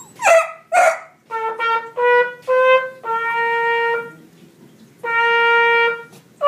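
Trumpet playing: three short notes stepping slightly upward, then two long held notes on the same pitch with a short pause between them. Two short, loud sounds come just before the notes.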